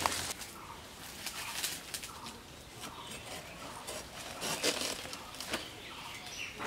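Crackling and rustling of leaves: footsteps through dry leaf litter, then a banana plant's leaves being pulled and shaken, with a few faint bird calls behind.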